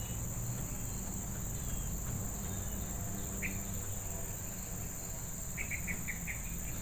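Steady, high-pitched insect chorus with an unbroken shrill drone, and a brief run of quick high chirps near the end.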